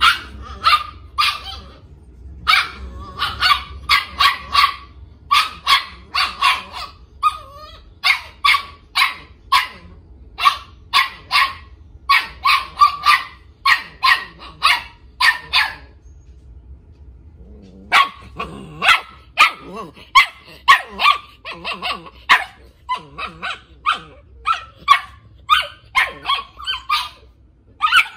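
A puppy yapping in rapid high-pitched strings, about three or four yaps a second, with a break of about two seconds a little past halfway.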